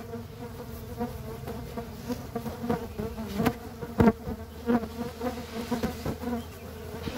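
Trigona biroi stingless bees buzzing in and around their opened hive box: a steady hum, with irregular sharp clicks scattered through it.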